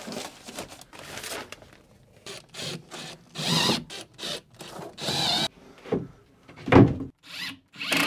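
Handling noise as foam insulation panels are fitted against the boat's hull: short rustling and scraping bursts, then a sharp thump against the plywood near the end.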